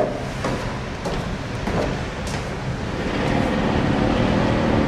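Road traffic with a vehicle engine running, growing louder about three seconds in.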